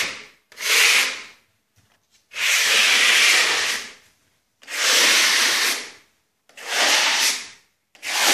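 Stainless steel trowel scraping across a marmorino-plastered wall in repeated strokes, each about a second to a second and a half long with short pauses between. The trowel is skimming off excess decorative wax so that the raised relief comes out lighter than the recesses.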